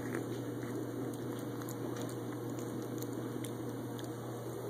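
Siamese cat eating wet cat food from a plate, chewing and licking with small scattered wet clicks, over a steady low hum.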